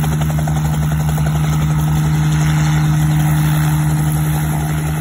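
Bell 47G-3B-2 helicopter in a steady low hover: the two-blade main rotor thumps rapidly and evenly over the steady hum of its turbo-supercharged Lycoming six-cylinder piston engine.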